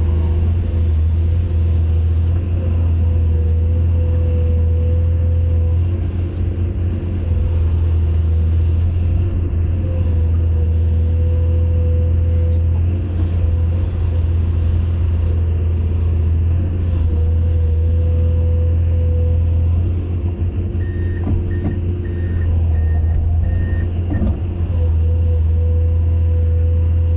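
Excavator's diesel engine running steadily, with a higher whine that comes and goes every few seconds. Near the end comes a short run of about six quick warning beeps.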